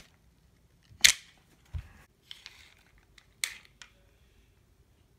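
A few sharp clicks and a low knock from handling a laser-cut wooden ballista toy: one loud click about a second in, a dull knock just after it, then lighter clicks.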